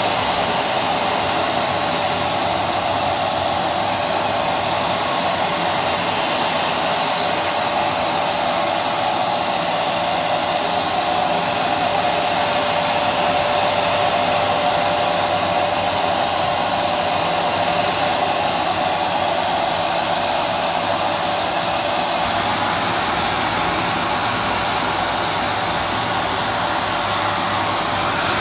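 Vacuum cleaner running steadily, its hose nozzle sucking sawdust off a wooden floor: a rush of air with a steady whine over it.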